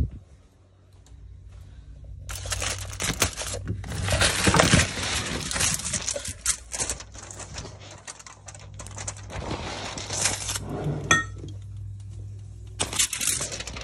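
Bursts of rustling and clatter from dishes being moved about and handled, over a steady low hum.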